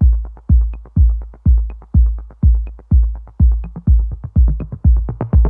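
Electronic background music with a heavy bass kick drum about twice a second and quick hi-hat ticks, a synth melody coming in near the end.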